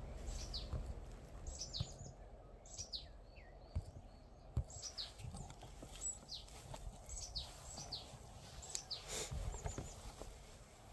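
Small birds calling: short high whistles that slide downward, a few each second throughout, over a low rumble with scattered thumps.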